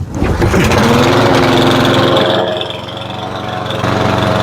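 Cub Cadet lawnmower's Powermore 173cc single-cylinder engine starting up and running, its speed dipping briefly about three seconds in before picking up again. It is running a little rich.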